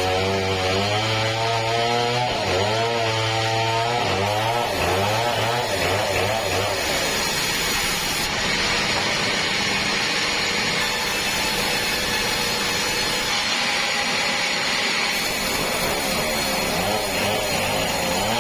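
Engine-driven sawmill saw cutting a large meranti log. The engine's pitch wavers up and down for the first several seconds, then gives way to a steadier, noisier cutting sound, and the wavering engine note returns near the end.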